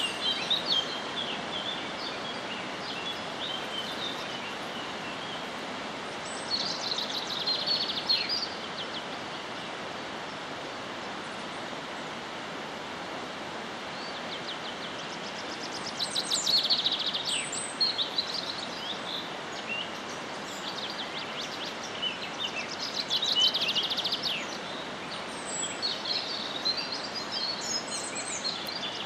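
Wild birds singing and chirping over a steady even hiss of outdoor ambience, with several bursts of rapid high trills every several seconds.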